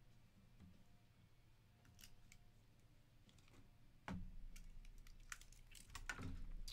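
Faint small clicks and light handling noises at a desk: sparse at first, then coming quicker and louder from about four seconds in.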